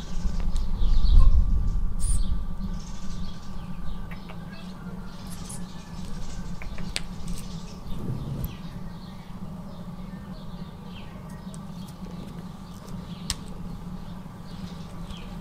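Outdoor ambience: a low wind rumble on the microphone, loudest in the first two seconds, with scattered short bird chirps and a few light clicks.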